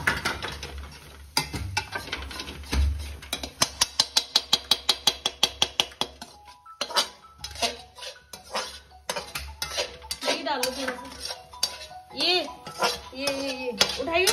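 A metal spoon clinks and scrapes against a steel pan as scrambled egg is stirred, with a fast, even run of about five or six clinks a second a few seconds in.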